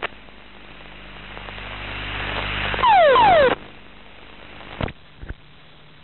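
F-16 cockpit audio during an ejection: a rushing noise swells for about three seconds, then a loud pair of falling tones that cuts off suddenly. Two short clicks follow over a faint steady hum.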